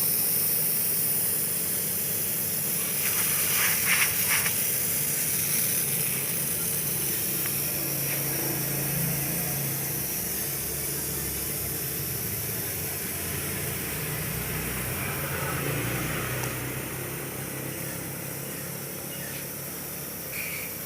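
Refrigerant gas hissing out of a refrigerator's sealed system as the filter drier is flushed, over a low steady hum. The hiss slowly weakens.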